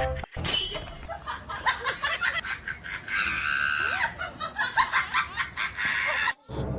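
A person laughing in quick repeated bursts, with a longer high-pitched sound lasting about a second, about three seconds in.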